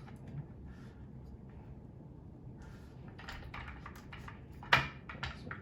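Chair caster being pushed and worked into its socket in a plastic office-chair base: a run of short knocks and rattles starting about halfway through, with one sharp, loud knock near the end as the wheel stem is forced in.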